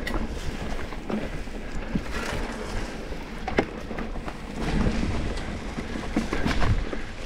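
Mountain bike rolling over a rough dirt trail: tyre noise and rattling from the bike under wind buffeting the microphone, with a few sharp knocks, the clearest about midway.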